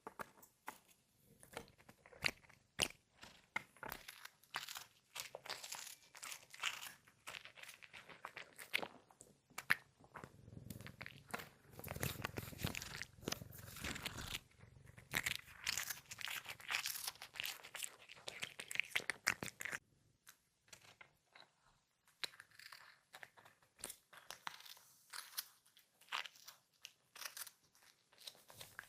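A cat chewing crunchy bear-shaped cookies: a steady run of crisp crunches, with a short pause about twenty seconds in.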